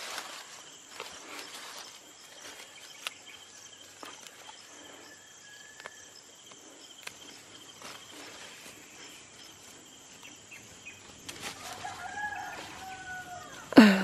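Soft rustling of sweet potato vines and dry soil with scattered small clicks as the tubers are pulled up by hand. A rooster crows in the background near the end, and a sudden knock comes just before the end.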